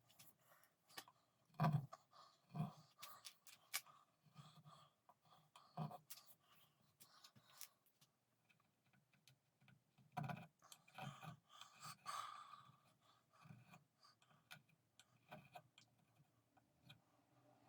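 Faint, irregular scratching and light knocks of hand-tool work, with a few louder knocks spaced through it.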